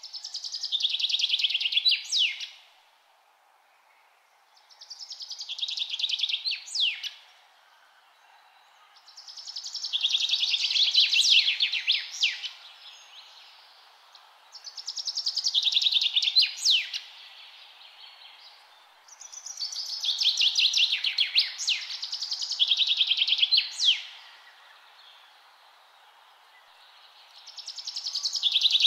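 A songbird singing a repeated trilled song: about six phrases, each a rapid high trill two to five seconds long that swells up and ends in a few quick downward notes, with pauses of a second or two between. A faint steady hiss of outdoor ambience lies beneath.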